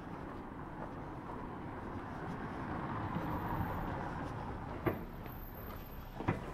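City street noise as a vehicle passes, swelling and easing off, with two sharp knocks in the second half.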